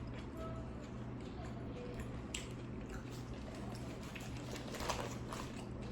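Close-miked chewing and biting of a Subway tuna sandwich: soft, moist chewing broken by many small irregular crunches and clicks.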